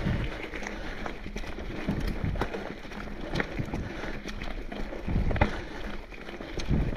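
Mountain bike ridden uphill on a dirt trail strewn with leaves and roots: steady tyre and trail noise with irregular thumps and sharp clicks as the bike rattles over bumps.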